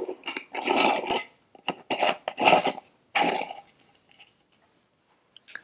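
Metal screw lid being twisted onto a glass mason jar: four short scraping turns over the first few seconds.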